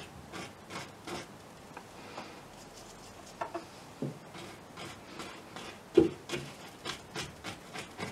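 Paintbrush scrubbing and dabbing on a canvas in short, scratchy strokes, with one sharper knock about six seconds in.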